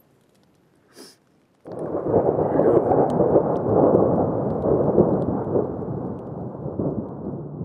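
A long, deep rumble of thunder starts suddenly about two seconds in and slowly fades, with a faint click just before it.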